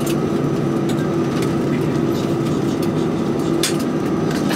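Steady cabin noise inside a Boeing 737-300 taxiing at idle: its CFM56 engines and air system making a constant hum with a steady tone running through it. A few sharp clicks come through on top.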